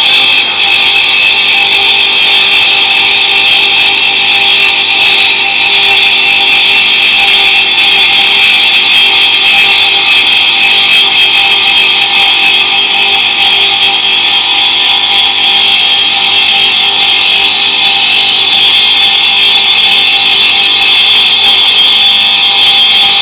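5-axis CNC cutting machine running: a loud, steady, high-pitched whine that holds for the whole stretch.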